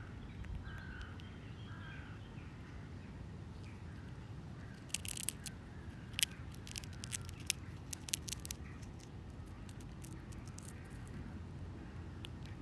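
Outdoor ambience with a low steady rumble and faint bird calls in the first couple of seconds, then a cluster of sharp irregular clicks and ticks from about five to nine seconds in.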